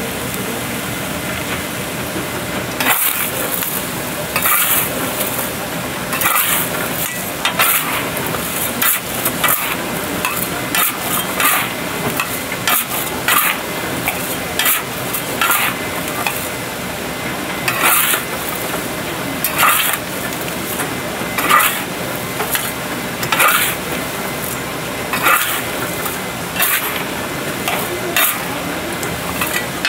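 Chestnuts and hot black roasting stones rattling and scraping in a large iron roasting pan as they are stirred. From about three seconds in, the rattle comes in rushes roughly once a second over a steady hiss.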